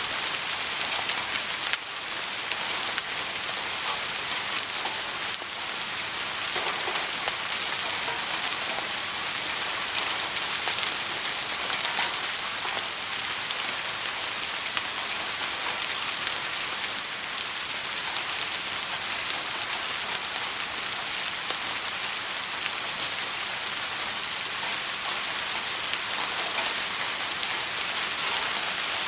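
Steady soft rain falling on a surface: an even hiss with many small drop ticks throughout and no thunder.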